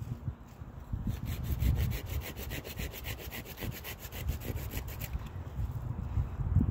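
Hand saw cutting through a wood branch in rapid, even back-and-forth strokes, starting about a second in and stopping after about four seconds.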